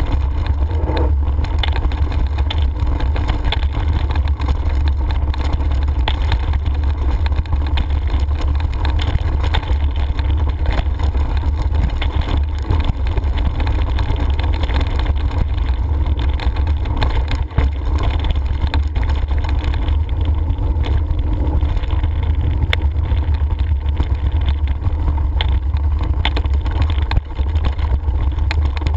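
Mountain biking heard through an action camera's microphone: a steady low wind rumble, with the rattle and crunch of tyres and bike over a stony gravel track.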